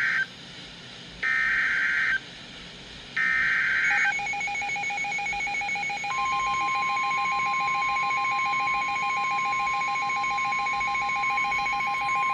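Emergency Alert System SAME header: three bursts of warbling data tones, each about a second long and a second apart. Then the alert tone: a pulsing two-note tone, joined about two seconds later by a steady higher tone that holds.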